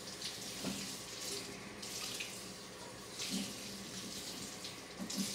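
Kitchen tap running into the sink while something is rinsed under it. The stream's splash swells and drops unevenly, with a few light knocks.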